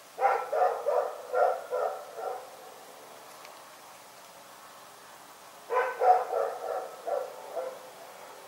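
Dog barking in two quick volleys of about six barks each, the second volley starting about five and a half seconds in.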